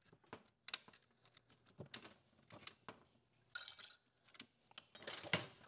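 Light metallic clicks and clinks of clutch plates being picked out of an automatic transmission's reverse input clutch drum, with a short metallic ring a little past halfway and quicker clicking near the end.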